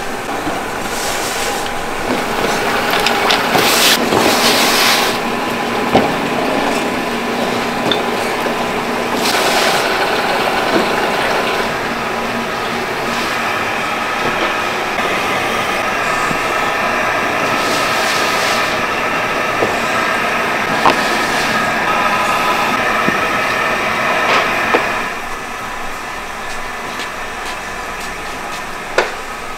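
Ceramics-factory machinery running steadily: a constant mechanical hum with a few faint steady tones. There are hissing surges in the first ten seconds, and a few sharp knocks scattered through. The level drops somewhat near the end.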